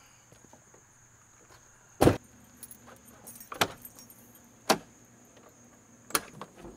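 Doors and latches of a Ford Excursion SUV: a door shut with a sharp thud about two seconds in, then a few lighter clicks and clunks as the rear flip-up glass and rear door are unlatched and opened.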